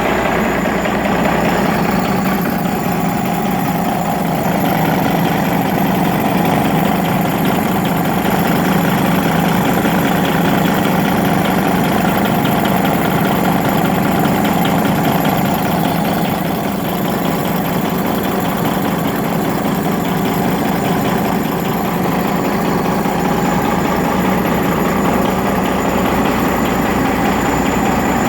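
Detroit Diesel Series 60 inline-six diesel engine idling steadily with a knock. The knock comes from a bad injector that was adjusted at a lower rate.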